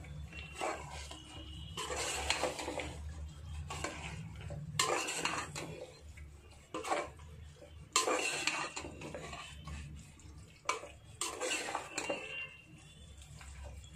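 A metal slotted spoon scraping and clinking against an aluminium pot in irregular strokes every second or two, stirring raw chicken into a thick masala and yoghurt mix. A steady low hum runs underneath.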